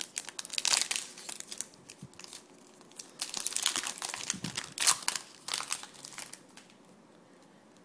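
Foil trading card pack wrapper being torn open and crinkled by hand, in irregular crackling bursts that die down near the end.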